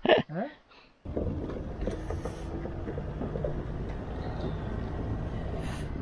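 Steady hum of a motor vehicle's engine, a low drone with a few held tones, starting abruptly about a second in.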